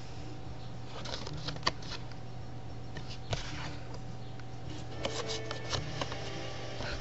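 Playing cards being handled: a few light snaps and slides of the cards about a second in, once again near the middle, and a quick cluster near the end, over a steady low hum.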